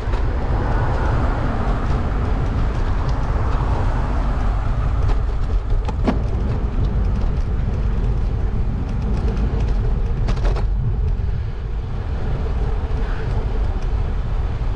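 Steady wind rush and low road rumble picked up by a camera riding on a moving vehicle, with a couple of sharp clicks about six and ten seconds in.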